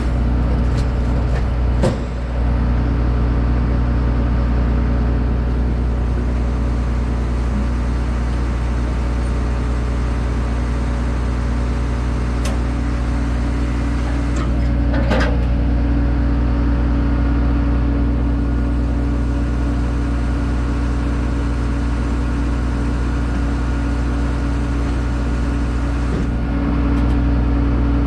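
Case 2144 combine's diesel engine running steadily at idle, with a couple of sharp metallic knocks as the header is worked onto the feeder house, about 2 seconds and 15 seconds in. The engine gets a little louder near the end.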